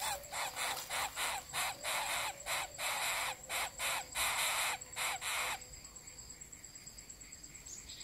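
Greater coucal nestlings giving harsh, hissing rasps at the nest while the adult feeds them, typical begging calls. There are about fifteen rasps in quick succession, and they stop about five and a half seconds in.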